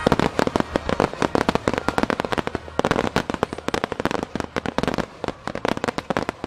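Barrage of aerial firework shells bursting in rapid volleys, many sharp bangs a second, thinning a little near the end.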